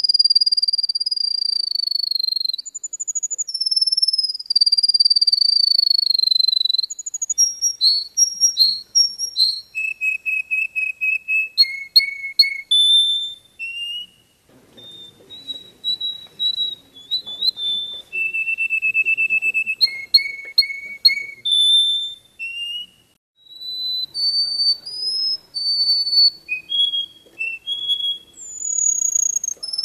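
A small yellow songbird singing a long, varied song of high whistled notes: drawn-out, slowly falling whistles at first, then runs of quick repeated notes and trills, with brief pauses about halfway and again about three-quarters through.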